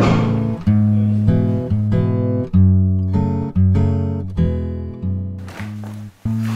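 Background music: acoustic guitar playing a slow run of plucked notes, each ringing and fading, with a brief break near the end.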